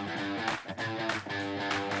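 Background music led by guitar, playing a run of plucked notes.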